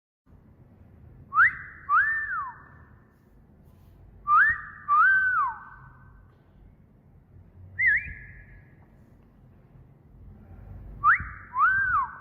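Wolf whistles repeated three times, each a quick rising note followed by a longer note that rises and then falls, with a short single whistle note between the second and third.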